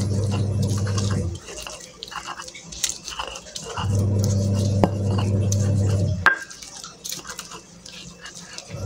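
Stone pestle grinding and crushing chilies, shallots and garlic in a stone mortar, with small crunching clicks and one sharper knock about six seconds in. A loud, steady low hum sounds for the first second or so, again for about two and a half seconds in the middle, and comes back at the very end.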